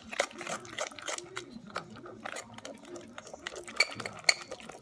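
A spoon stirring slime mixture in a bowl, with irregular scrapes, clicks and a few short clinks against the bowl as the Tide detergent is mixed in.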